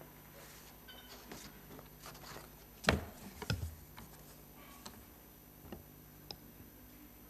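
Knocks and clicks on a podium microphone: scattered faint clicks and two louder, bass-heavy thumps about three seconds in, as the microphone is handled before a speech.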